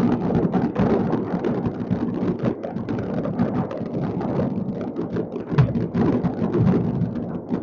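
Many fireworks going off across a city at once: a continuous din of overlapping bangs and crackles, with one louder bang a little over five seconds in.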